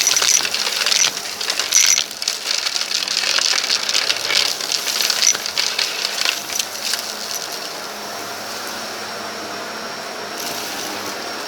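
Vacuum cleaner running over a rug and sucking up sand, the grit crackling and rattling through it for about the first seven seconds before it settles into a steady motor hum.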